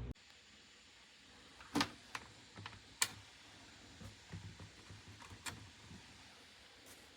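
Scattered, irregular key presses on an EPOMAKER x Aula F99 mechanical keyboard with Graywood V3 switches: a series of short clicks, the sharpest about two and three seconds in.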